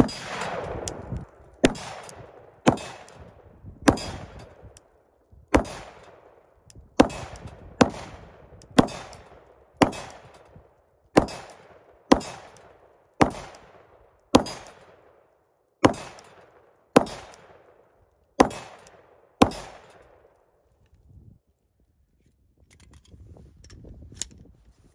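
A Glock 17 9mm pistol fires about seventeen shots in steady succession, roughly one a second, each followed by a fading echo. The pistol cycles without a stoppage, and the firing stops about twenty seconds in.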